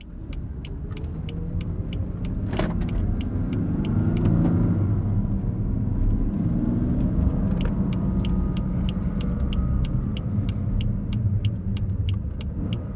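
2015 BMW M3's twin-turbo straight-six running under way on a test drive, its pitch rising and falling as it accelerates and eases off. A regular clicking about twice a second runs over it, with one sharp click a little over two seconds in.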